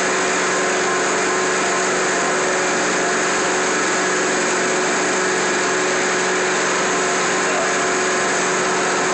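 Rotary jet extraction carpet cleaner running over carpet: the motor-driven spinning head and the suction through its vacuum hose make a steady hiss with a constant hum underneath.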